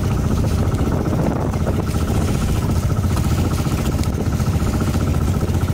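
Inboard engine of a motorized bangka (outrigger boat) running steadily while the boat is underway, with a rapid even pulsing.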